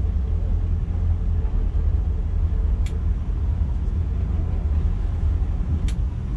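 Twin MerCruiser 7.4 L V8 inboard engines running at low speed with a steady low rumble while the boat is manoeuvred on its shifters and throttles. Two short sharp ticks sound about three seconds apart.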